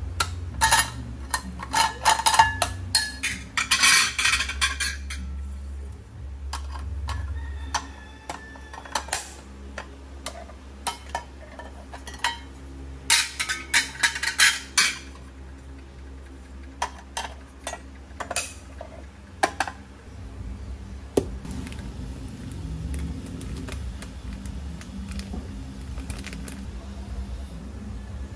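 Removable nonstick plates of a sandwich maker being unclipped, lifted out and clacked into place as the sandwich plates are swapped for waffle plates. Runs of sharp clicks and clatter come in two busy spells, one at the start and one about halfway through, with only scattered small clicks after that.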